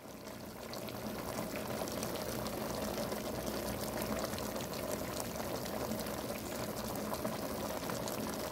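Humba sauce of soy, vinegar and cola bubbling at a steady simmer around pork hocks in the pot, with many small pops: the dish is cooked through.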